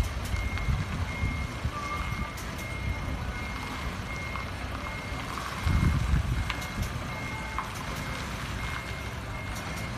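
Truck's reversing alarm beeping steadily, about one and a half beeps a second, as the truck backs up, over the low rumble of its engine, which swells briefly about six seconds in.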